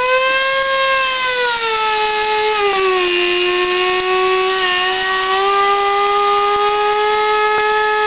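Electric coffee grinder running: a steady high motor whine over the gritty noise of the beans being ground, its pitch dipping slightly about three seconds in.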